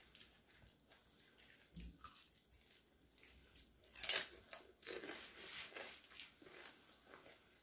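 Crisp pani puri shells being bitten and chewed, in short scattered crunches; the loudest crunch comes about four seconds in.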